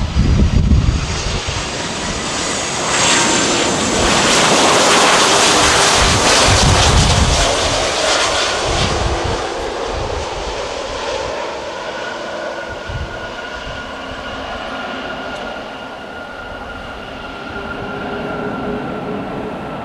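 Jet engines of a landing Airbus A330 airliner as it touches down and rolls along the runway. The noise swells about three seconds in, is loudest for the next few seconds, then fades to a steady whine as the aircraft rolls away.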